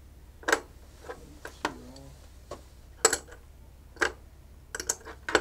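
Silver coins being handled on a counter: about eight sharp, irregularly spaced clicks and clinks as coins are picked up and set down.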